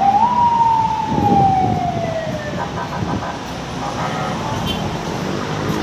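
A siren's single wail, rising briefly and then falling slowly for about two and a half seconds, over city traffic noise.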